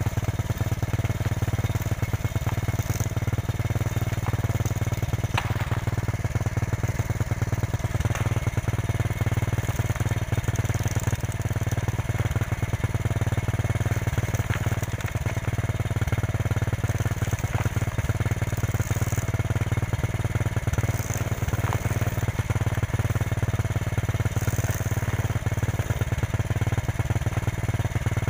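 Motorcycle engine running steadily, driving the rear wheel spinning on its stand while corn cobs are pressed against the tyre to strip the kernels. A few faint clicks sound over the steady hum.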